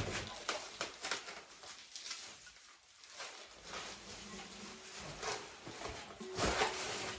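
Irregular clicks and rustling of a light fixture's packaging being handled and unwrapped, growing busier near the end, with a faint steady tone in the second half.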